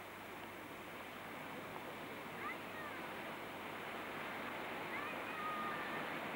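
Steady rush of water past a moving boat, slowly growing louder, with a few faint, short high whistling chirps about two and a half seconds in and again around five seconds.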